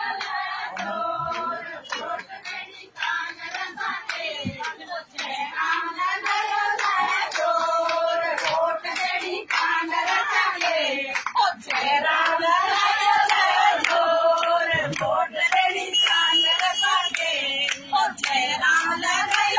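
A group of women singing together while clapping their hands in a steady rhythm.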